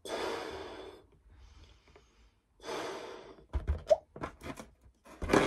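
Two long puffs of breath blown into a 9-inch latex party balloon, with a faint breath between them. Then the rubber of the full balloon squeaks and snaps in short bursts as its neck is pinched and handled, the loudest snap near the end.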